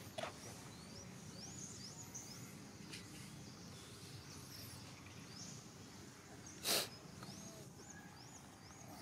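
Faint outdoor animal sounds: a string of short, high squeaks that rise and fall in pitch, several a second. About two-thirds of the way through comes one brief, louder hissing burst.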